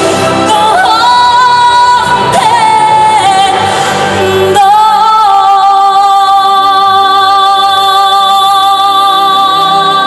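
A woman singing a pop song live over backing music. About four and a half seconds in, the bass of the backing drops out and she holds one long, steady note.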